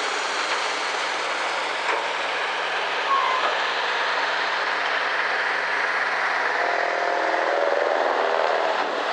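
Caterpillar 225 hydraulic excavator's diesel engine running steadily as the machine works, with a pitched hum joining in about two-thirds of the way through.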